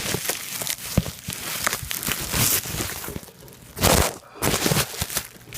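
Plastic bubble wrap being crumpled and torn off a shoe package by hand, an irregular run of loud crinkling and crackling with a louder rip about four seconds in.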